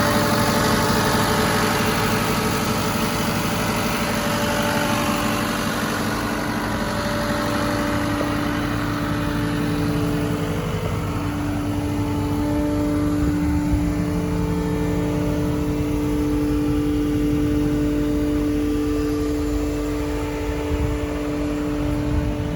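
Cat 299D2 XHP compact track loader's diesel engine running steadily, with a droning tone that rises slightly in pitch and grows louder about halfway through.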